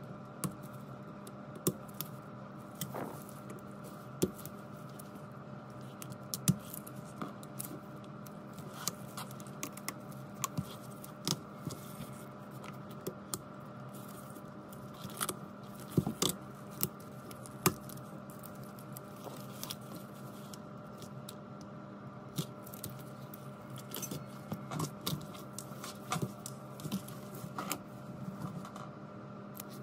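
Irregular sharp clicks and taps of metal tweezers working on an opened Huawei Mate 30 Pro's chassis and internal parts, over a steady hum.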